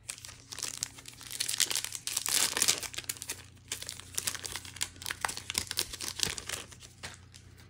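Foil wrapper of a Magic: The Gathering booster pack being torn open and crinkled, a dense run of crackling that is loudest a second or two in and then goes on in smaller crinkles.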